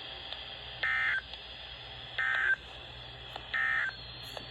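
Emergency Alert System end-of-message signal: three short bursts of the SAME digital data warble, evenly spaced about 1.4 seconds apart, marking the end of the alert.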